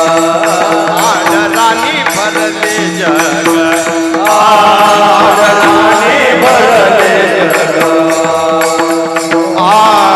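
A male Warkari kirtankar singing an abhang in a high, long-held voice with wavering ornaments, over a steady drone note and a light regular beat of percussion.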